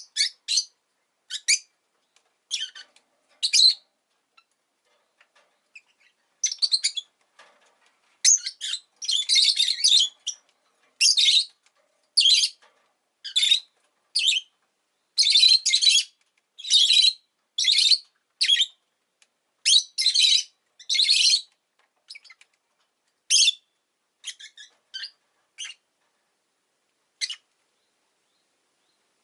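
Rosy-faced lovebird chirping: a string of short, sharp, high-pitched calls, coming thick and fast in the middle and thinning out to scattered single chirps near the end.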